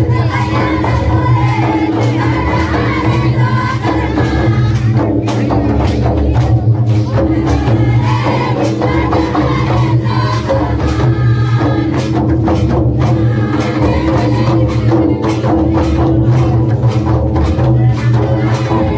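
Karma folk song playing loud and steady: group singing over a repeated drum beat.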